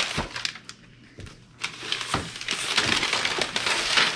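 Gift-wrapping paper being torn and crinkled as a present is unwrapped. The crackly rustling dips briefly about half a second in, then picks up again and keeps going about a second and a half in.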